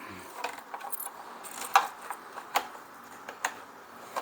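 Light, irregular clicks and taps as a small plastic blower fuel tank and a cleaning brush are handled, about eight sharp ticks spread unevenly over a few seconds, with a faint hiss underneath.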